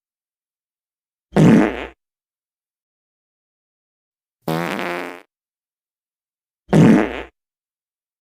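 Fake fart sound effect, three short wavering farts of under a second each, a few seconds apart, with dead silence between them.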